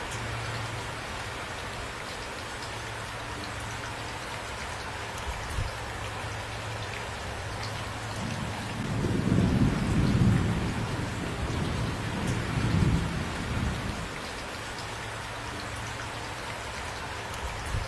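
Steady heavy rain falling, with a low roll of thunder that builds about halfway through, rumbles for several seconds in two swells and dies away.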